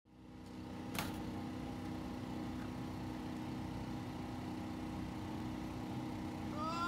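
An engine running steadily at idle, a low even hum, with one sharp click about a second in. Just before the end a drawn-out pitched voice-like sound begins, bending in pitch.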